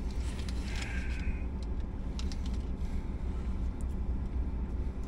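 Low steady rumble inside a car cabin, with light rustling and small clicks from a sandwich and its wrappers being handled.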